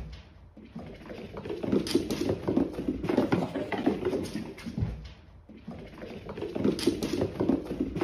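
Cats' paws pattering and scrabbling on a wooden floor as two cats chase each other. The rapid, irregular footfalls dip briefly about half a second in and again about five seconds in.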